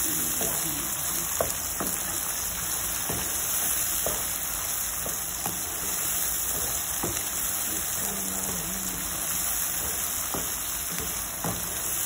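Chopped onions with cumin seeds sizzling in ghee and oil in a non-stick frying pan, a steady hiss broken by scattered short clicks as a wooden spatula stirs and taps the pan.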